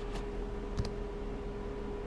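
Trading cards handled by hand, giving two faint short clicks, over a steady electrical hum.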